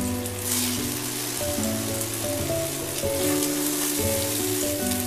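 Raw ground-beef patties sizzling in hot oil in a frying pan as they are laid in, with a stronger burst of sizzle about half a second in. Background music with a melody of held notes plays over it.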